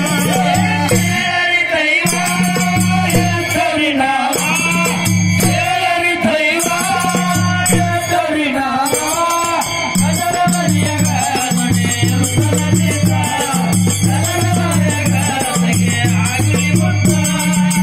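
Devotional group singing over microphones: a man's voice leads a chant-like melody while hand percussion keeps a quick, even rhythm and a low accompaniment moves back and forth between two notes.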